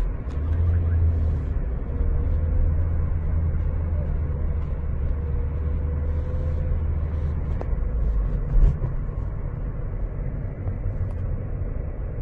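Steady low rumble of a car's engine and tyres heard from inside the cabin while driving, with one short thump about eight and a half seconds in.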